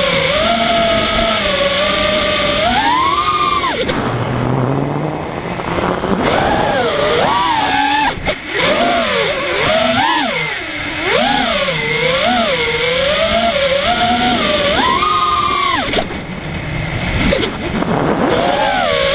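FPV racing quadcopter's iFlight Xing-E 2207 brushless motors and propellers, heard from the onboard camera. They whine constantly, swooping up and down in pitch as the throttle changes, over a steady rush of wind. The whine drops off briefly about four seconds in, again near eight seconds, and around sixteen seconds, then climbs back.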